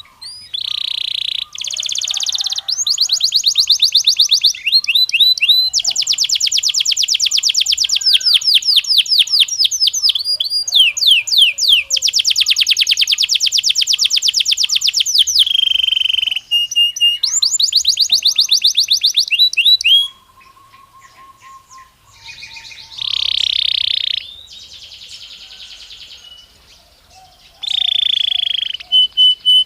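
Belgian canary singing a loud song of fast trills and rolls, rapid runs of repeated notes strung one after another. About two-thirds of the way through the song drops off, broken by a short buzzy roll, then the trilling picks up again near the end.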